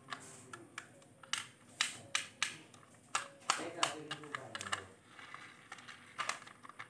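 A plastic toy dump truck being handled: irregular sharp clicks and taps of hard plastic as it is turned over and its tipper bed moved. A faint voice is heard in the background now and then.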